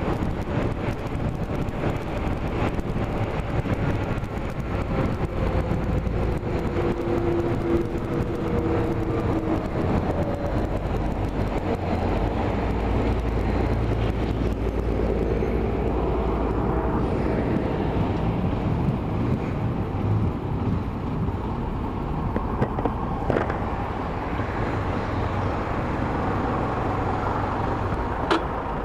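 Steady road-vehicle noise, a continuous low rumble with a few faint held tones in the first half and a couple of brief clicks near the end.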